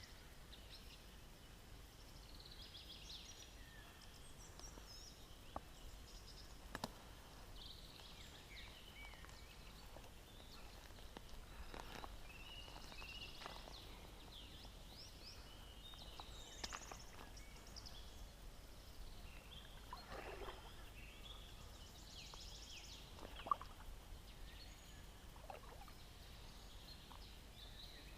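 Faint song of several songbirds, short chirps and trills overlapping throughout, with a few sharp clicks or taps.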